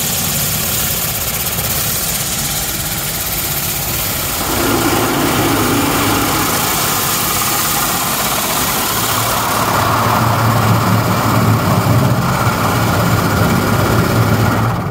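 Automatic spray car wash heard from inside the car's cabin: a steady hiss of water and foam jets spraying over the roof and windows. The sound shifts in tone about four seconds in, and a low hum grows louder about halfway through.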